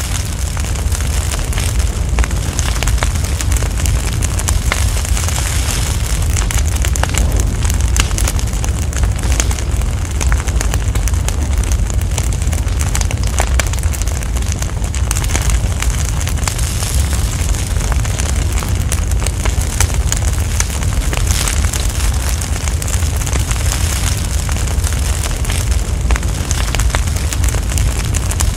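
A large fire burning: a deep rumble with frequent crackles, swelling up in the first second and then steady.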